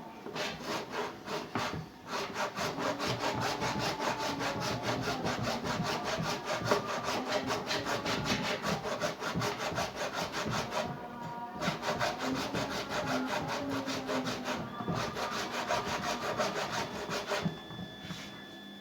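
A saw cutting through the plastic tub of an Ariston washing machine, the step that splits the welded tub open to replace the drum bearings. The saw goes in fast back-and-forth strokes, breaks off briefly three times and stops shortly before the end.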